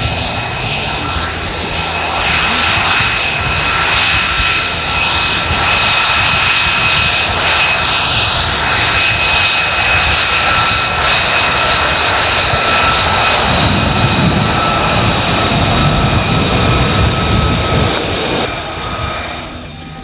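F-35A Lightning II's Pratt & Whitney F135 turbofan running at low power with the jet on the runway: a loud, steady jet whine of several high tones over a rumble. The high whine drops away suddenly near the end.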